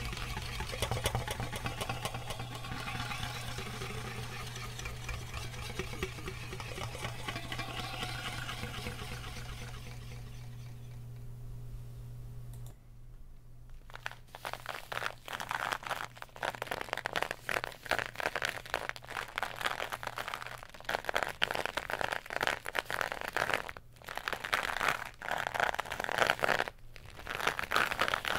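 Fingertips rubbing and crinkling aluminium foil wrapped over a microphone, over a low steady hum, until about 13 seconds in. After a brief lull, uneven strokes of scratchy rubbing and scraping from a capped cardboard tube worked close to the microphone.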